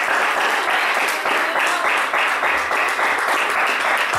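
Congregation applauding: many people clapping at once in a steady, dense round of applause.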